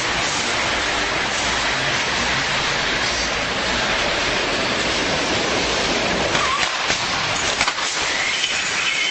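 Steady rushing street noise with a few sharp knocks about seven seconds in, and near the end a high squeal begins, the tram's steel wheels squealing on the rails.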